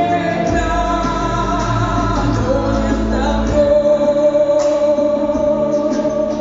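A song: a voice singing over instrumental backing, with a long held note through the second half.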